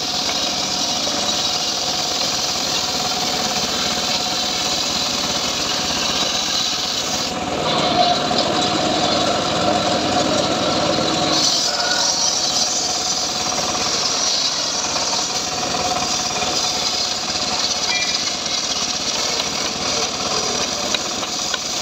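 Engine-driven large circular saw blade of a homemade sliding-table sawmill running and ripping a trembesi (rain tree) beam along its length. The machine sound is steady and loud throughout, and its tone shifts for a few seconds about a third of the way in.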